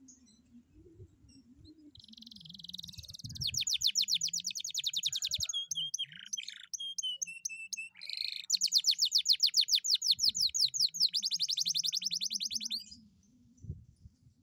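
Domestic canary singing: a buzzy opening phrase, a rapid trill, a few slower piping notes, then a second long rapid trill that stops about a second before the end.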